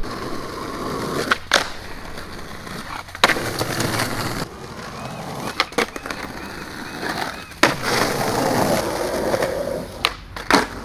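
Skateboard wheels rolling over rough, weathered pavement, broken by several sharp clacks of the board striking the ground as tricks are popped and landed.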